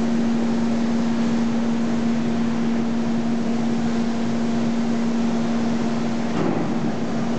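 Steady machine hum with a constant low-pitched tone over a bed of noise, with a brief knock about six and a half seconds in.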